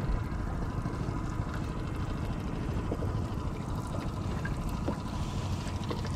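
Water sloshing and lapping against the side of a small boat, with wind rumbling on the microphone and a few faint knocks.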